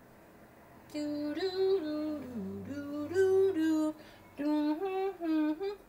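A woman humming a short tune in two phrases, with held notes that step up and down and a brief pause between the phrases.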